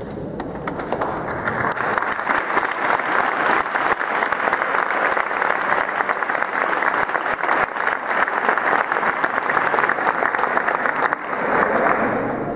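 Audience applauding, many hands clapping together. The applause builds over the first second, dips briefly near the end, then rises again.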